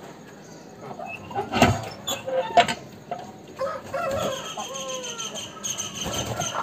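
Roosters calling, with clucks and crowing made of short calls that fall in pitch. Two loud thumps come about one and a half and two and a half seconds in.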